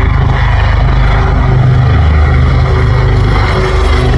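Display aircraft engine noise, loud and steady, with a strong low hum.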